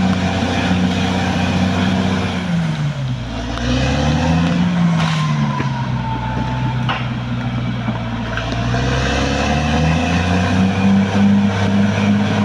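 Caterpillar D6R XL bulldozer's diesel engine running loudly. Its pitch dips about two seconds in, wavers, and climbs back near the end. A few clanks sound over it.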